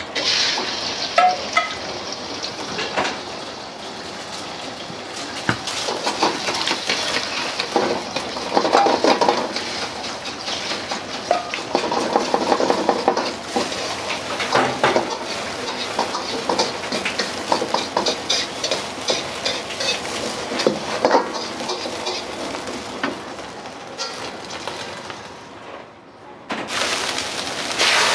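Beaten egg sizzling in hot oil in a wok, stirred with a metal ladle that clicks and scrapes against the pan, with quick runs of ladle strokes. The sizzle drops briefly near the end, then comes back louder.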